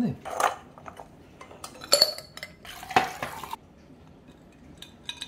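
Clear stick-shaped ice clinking and knocking against a stainless steel bowl and glassware: about three separate clinks, the last one about three seconds in with a short ring after it.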